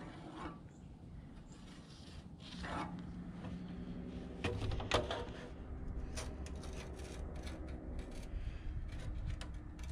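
Light scraping and rubbing with a sharp knock about halfway through, then a run of small clicks: a circular saw being handled and set onto a steel truck frame rail, with the blade not yet cutting.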